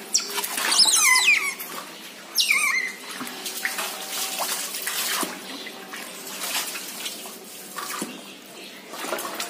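Water running from a garden hose into a plastic basin, a steady splashing pour. Two loud high squeals that fall in pitch come in the first three seconds, the first about a second in.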